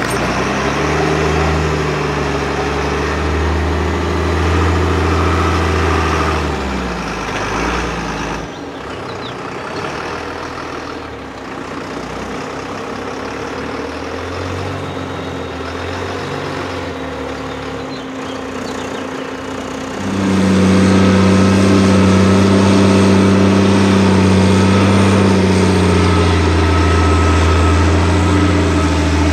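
Diesel engine of a MAN 6x6 prototype trial truck running steadily under throttle as it works through deep ruts. It eases off and goes quieter about eight seconds in, then comes on much louder at about twenty seconds and holds there.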